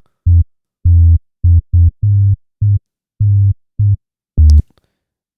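Ableton's stock Hip Hop Sub Bass synth played solo: about nine deep sub-bass notes of varying length, with silence between them, in a typical reggaeton sub-bass line. A brief click sounds as the last note stops.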